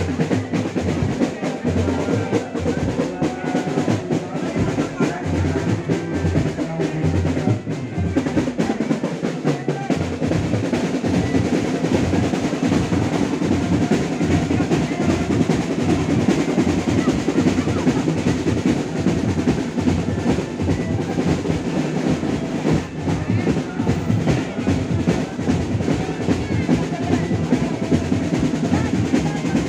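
Drum-heavy music accompanying a jaran kencak dancing-horse show: continuous drumming with rolls.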